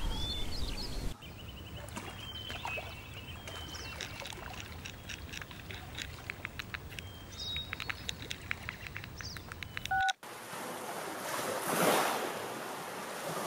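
Small birds chirping for most of the clip. Near the end come two short electronic beeps, the second lower. Then a sudden change to lake waves washing onto the shore, swelling once about two seconds before the end.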